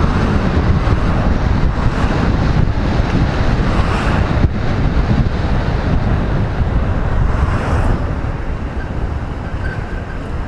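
Wind buffeting a helmet-mounted microphone on a moving motorcycle, a steady loud rush with road noise beneath it, easing a little near the end as the bike slows.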